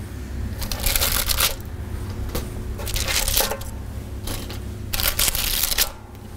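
Baking paper crinkling and rustling in a series of short bursts as baked cookies are lifted off a parchment-lined baking tray and set onto a wire cooling rack.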